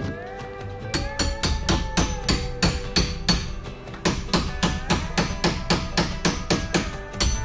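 A claw hammer striking long steel bolts, driving them down through a plywood gusset and frame timber in quick, evenly spaced blows, several a second, starting about a second in. Background music with held notes plays underneath.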